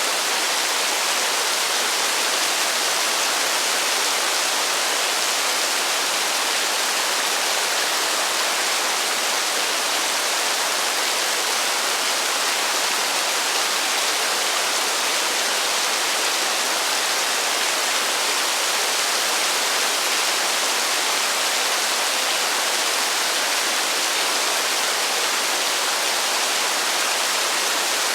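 Heavy rain falling steadily, a dense even hiss with no thunder and no separate drops standing out.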